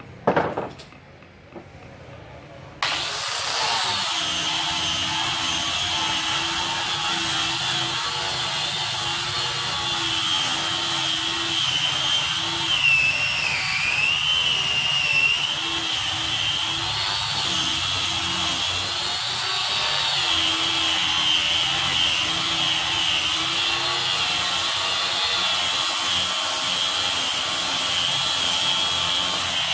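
A knock, then about three seconds in an electric hand sander starts up and runs steadily as it sands a wooden door frame, with a high whine that wavers a little as it is worked over the wood.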